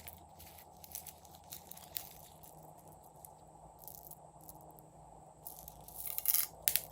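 Faint sticky clicks and crackles of slime being handled, coming sparsely and then bunching up about six seconds in, over a steady low hiss.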